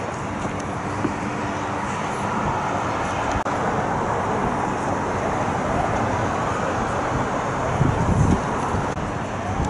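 Steady outdoor traffic noise, a low rumble of road vehicles, swelling louder about eight seconds in.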